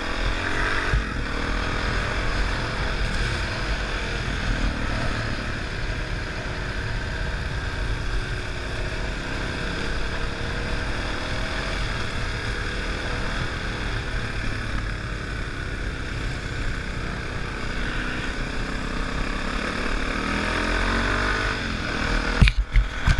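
Trail motorcycle engine running under way, with wind rushing over a helmet-mounted camera; the engine's pitch rises and falls gently with the throttle. A few loud thumps come near the end.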